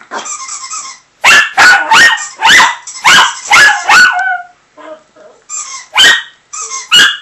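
A squeaky-toy sound plays over a Skype call, and a chihuahua answers with a rapid run of about seven loud, sharp yapping barks, each falling in pitch. A few more barks follow near the end.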